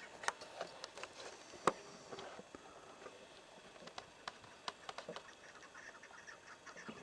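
Scattered sharp clicks and taps, the loudest just under two seconds in, over faint short repeated bird calls.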